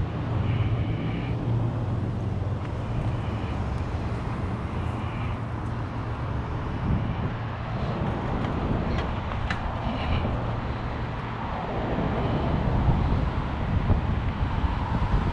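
Steady wind rumble on the microphone of a moving bicycle, mixed with passing road traffic.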